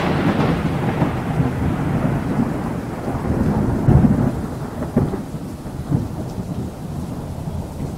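Intro sound effect: a deep rumble fading slowly from a boom just before, with further swells about four and five seconds in.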